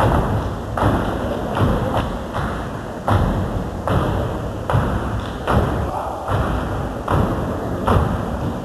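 Step team stepping: synchronized foot stomps and hand claps from a group of steppers in a steady beat, about one heavy hit every 0.8 seconds.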